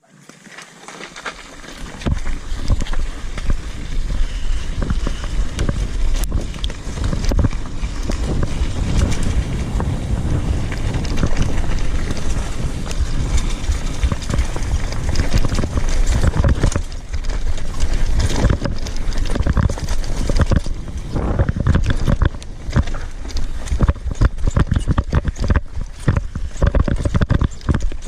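Downhill mountain bike descending a rough trail at speed, heard from a chest-mounted camera: a loud, steady low rumble with constant clattering and knocks from the bike over the ground. It builds up in the first couple of seconds as the descent gets under way.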